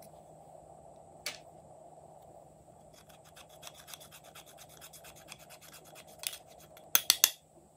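Pressed powder being scraped in a plastic compact with a small tool: a run of quick scratching strokes starting about three seconds in, with a few louder scrapes near the end. A single click about a second in.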